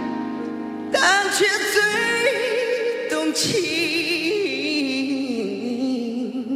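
A man singing a song into a handheld microphone over instrumental accompaniment, a new phrase coming in about a second in and long notes held with vibrato.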